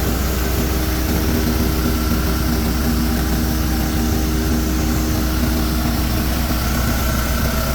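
Diesel-driven rice husk and bran grinding mill running steadily: a low, even engine drone under the mill's continuous hiss.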